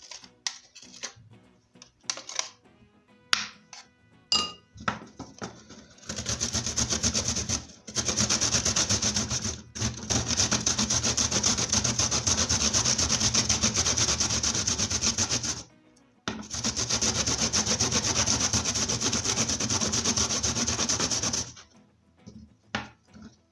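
Fresh ginger root rubbed up and down a metal box grater: a fast, rhythmic rasping that lasts about fifteen seconds, with three short pauses. It is preceded by a few light knocks and clinks as the grater and ginger are handled.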